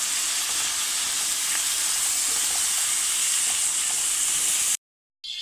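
Tomatoes and spice powders frying in hot oil in a non-stick pan, a steady sizzle. It breaks off abruptly for about half a second near the end, then carries on.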